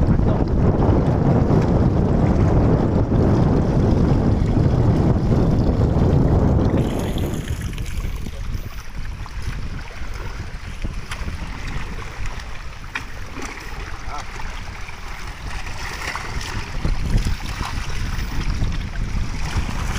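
Wind buffeting the microphone over the sound of sea water. About seven seconds in it drops abruptly to a quieter water hiss with scattered small clicks.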